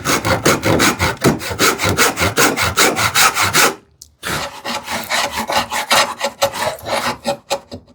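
Handsaw cutting wood in quick, even rasping strokes. The strokes stop for a moment about four seconds in, then carry on.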